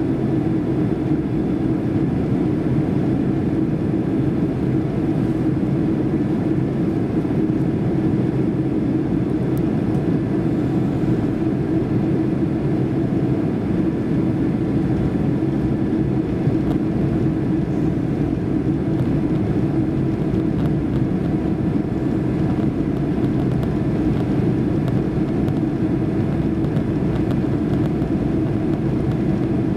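Steady cabin noise inside a Boeing 767-300 airliner in cruise or descent: a low, even drone of the jet engines and the air rushing past the fuselage, heard from a window seat over the wing.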